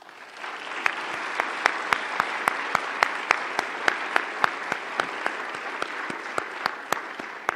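Audience applauding, building up over the first second and dying away near the end, with single sharp claps standing out.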